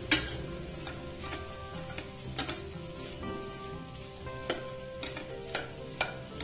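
Steel slotted spatula stirring chopped green beans in a stainless steel frying pan, with a low sizzle of frying under it. The spatula clinks against the pan several times, most sharply right at the start.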